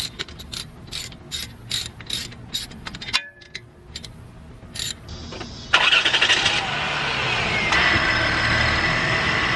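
Separate metallic clicks, about two to three a second, as caliper bolts are worked by hand, then from about six seconds in a loud power tool whirring steadily as the brake caliper bolts are run in.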